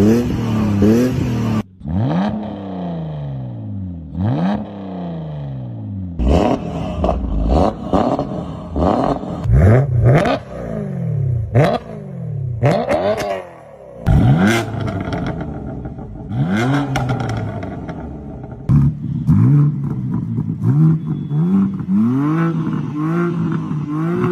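BMW car engine revved again and again in short blips, each rising in pitch and falling back, some held a little longer. Sharp cracks come between several of the revs.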